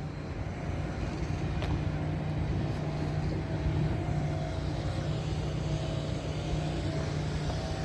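Construction equipment engine running steadily with a low, even hum, a sign that work is going on at the site.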